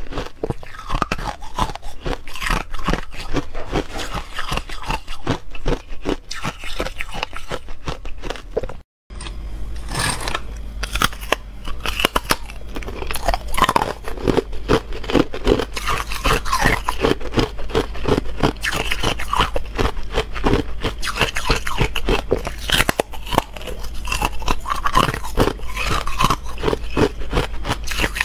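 Buckwheat ice being bitten and chewed, with dense, rapid crunches one after another. The sound cuts out completely for a split second about nine seconds in, then the crunching carries on.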